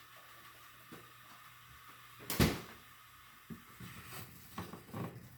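Kitchen items being handled and set down: one loud knock a little before halfway, then several lighter knocks.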